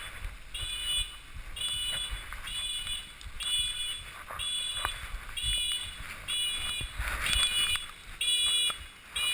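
Electronic beeper sounding over and over, a short multi-tone beep a little more than once a second, over the low rumble of a motorcycle being ridden on a dirt trail.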